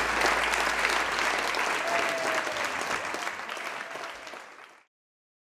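Audience applauding, a dense patter of many hands that fades away and stops about five seconds in.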